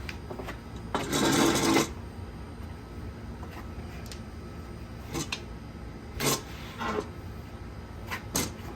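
Lounge chair sling fabric, its spline edge in the frame's groove, being pulled along the chair frame: a loud scraping rasp of nearly a second about a second in, then a handful of short scrapes and clicks.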